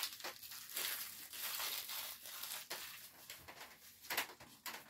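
Plastic packaging wrapper being crumpled and crinkled in the hands, in irregular crackles, with a louder knock about four seconds in.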